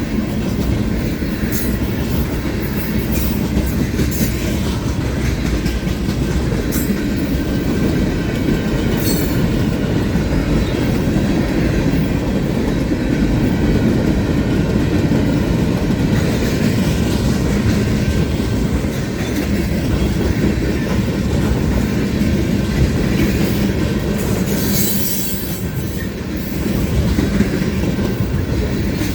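Freight cars of a long mixed freight train rolling steadily past, wheels clacking over the rail joints, with a few brief high wheel squeals and clanks along the way.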